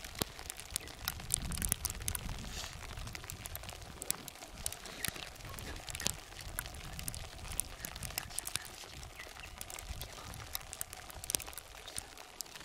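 Gusty wind rumbling on the microphone, with irregular crackling ticks scattered throughout.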